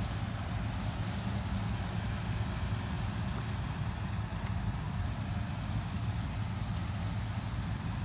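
Combine harvester's diesel engine running steadily while it cuts rice, heard as a continuous low drone.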